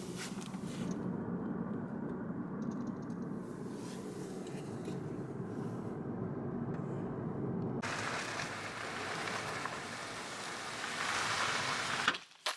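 A vehicle engine running steadily with a low, even hum. About eight seconds in a louder rushing noise takes over, and the sound cuts off suddenly near the end.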